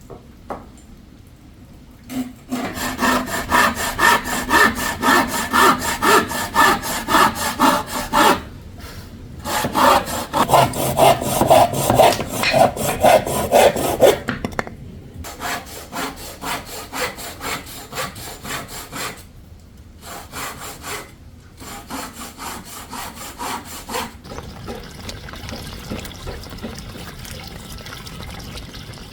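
Hand saw cutting through a wooden board, in several runs of quick back-and-forth strokes with short pauses between them, stopping a few seconds before the end.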